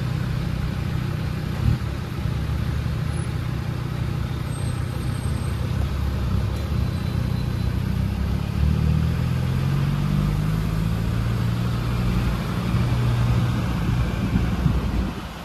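Land Rover Discovery 3 driving on a paved mountain road, heard from inside the cabin: a steady engine drone and tyre noise, the engine pitch rising and falling a little with the throttle. There is a short knock about two seconds in and another near the end.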